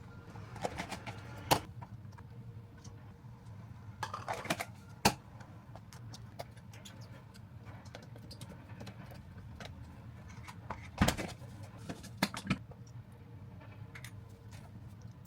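Kitchen items being handled: a few scattered light clicks and knocks, some in quick clusters, over a low steady hum.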